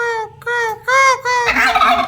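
Domestic turkeys calling: a run of short, pitched calls about two a second, each rising and falling. About a second and a half in, they give way to a rough, rattling gobble.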